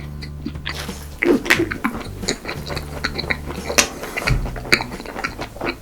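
Background music with long held low notes, over many sharp crisp crunches and clicks of eating.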